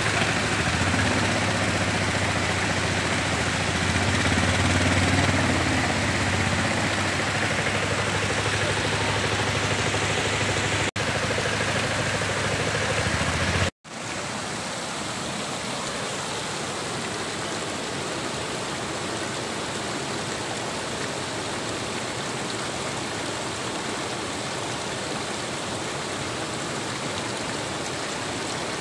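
Floodwater rushing steadily over a submerged road and across rocks. For about the first half an auto-rickshaw's engine runs with a low steady hum under the water; it drops out suddenly about halfway through, leaving only the rushing water.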